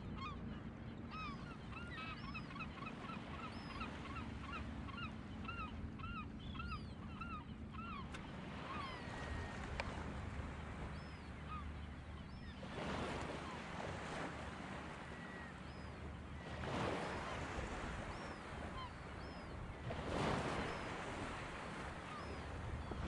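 A flock of birds calling: many short, rising-and-falling calls overlapping for the first eight seconds or so, then only a few. Three brief rushing noises come later, over a steady low background.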